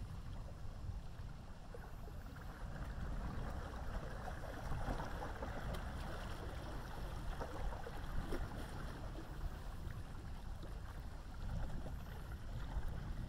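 Distant thunder rolling over a steady low rumble, swelling for several seconds in the middle and then easing off.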